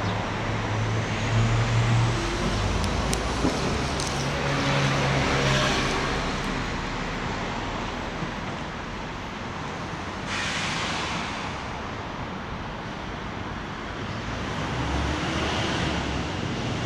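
Road traffic: the steady rush of passing cars with a low engine hum.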